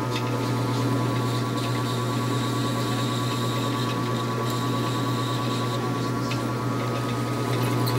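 Metal lathe running with a steady mechanical hum.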